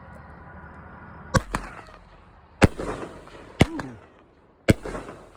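Sky Fall consumer firework firing: a run of sharp bangs, two in quick succession about a second in, then one roughly every second, each trailing off briefly.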